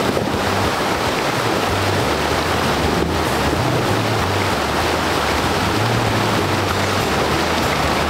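Mitsubishi Montero Sport SUV fording a rocky river: a steady, loud rush and splash of water churned up around its wheels.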